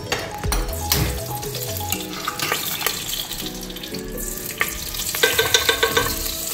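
Spoonfuls of ghee sizzling as they hit a hot nonstick pot, with a steel spoon clicking against the pot. Background music plays underneath.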